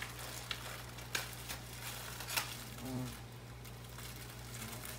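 Aquarium internal filter running: a steady low hum under an even watery hiss, with a few soft clicks and taps in the first half.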